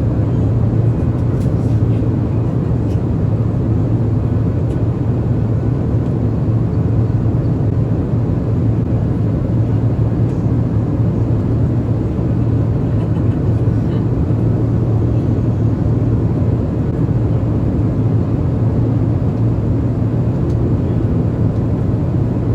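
Steady cabin noise inside an Airbus A350 in flight, a constant airflow and engine drone with a strong low hum.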